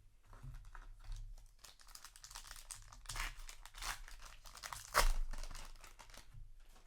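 Foil trading-card booster pack wrapper crinkling as it is handled and torn open, with a sharp, loud rip about five seconds in.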